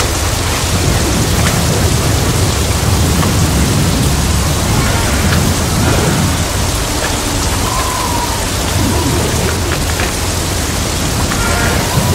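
Storm wind blowing at gale force, about 50 knots, with rain, over a sailboat moored in harbour: a steady, loud rushing noise with a heavy low rumble of wind on the microphone.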